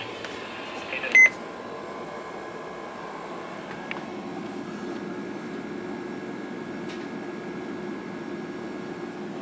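Dead air on a weather radio broadcast: a steady low electrical hum with hiss. A short, loud electronic beep sounds about a second in, and a faint steady high tone joins the hum about four seconds in.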